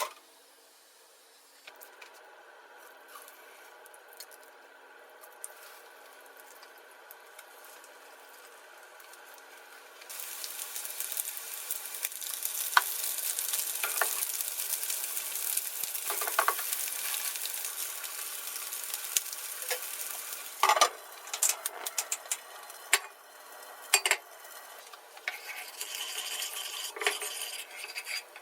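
Food begins sizzling in a hot frying pan about ten seconds in, after a quiet start. A utensil clinks and scrapes against the pan several times.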